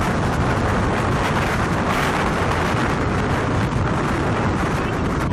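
Strong wind buffeting the microphone: a loud, steady rushing noise with no distinct hits.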